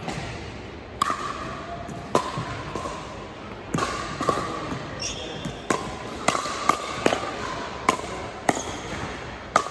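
A pickleball rally: a paddle striking the hard plastic ball gives sharp pocks, about ten of them, coming quicker in the second half. A few short shoe squeaks on the hardwood floor come in between.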